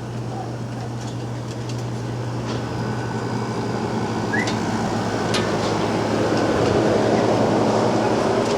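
A steady machine hum with a rushing, airy noise that grows gradually louder, with a few faint clicks.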